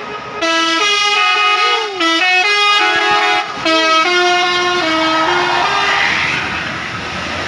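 Tour bus's telolet horn, a set of musical air horns, playing a quick tune of stepped toots with a couple of short sliding notes for about five seconds. It is followed by the rushing road noise of the passing vehicle.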